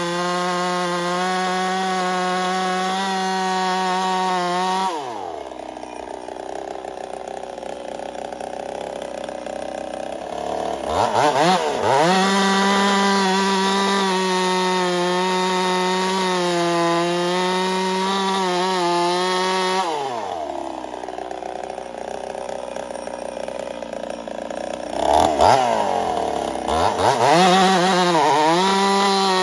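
Ported Husqvarna 55 two-stroke chainsaw running at full throttle, most likely cutting wood. It drops to idle about five seconds in, revs sharply back up about six seconds later, and repeats the same drop to idle and rev back to full speed in the last third.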